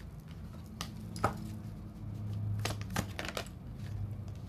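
Tarot cards being handled and laid down, giving a handful of sharp, separate snaps and taps, several in quick succession near the end, over a steady low hum.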